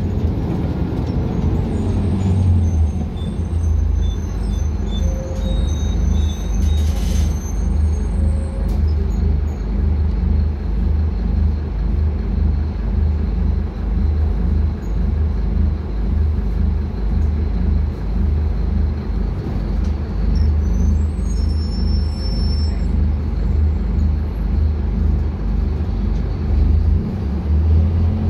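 Scania K250UB bus heard from inside the passenger cabin while driving: the rear-mounted diesel engine's steady low drone and road noise. There are a few faint high squeaks, and a short hiss about seven seconds in.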